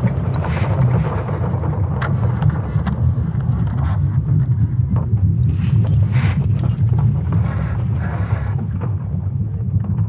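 ESA's sonification of Earth's magnetic field, made from Swarm satellite data: a deep, unbroken rumble with crackles and creaks scattered through it and brief high tones now and then.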